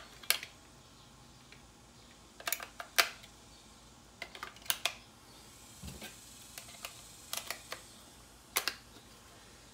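AA batteries being pushed one by one into the battery compartment of a pistol-grip RC radio transmitter: a string of sharp, irregularly spaced clicks.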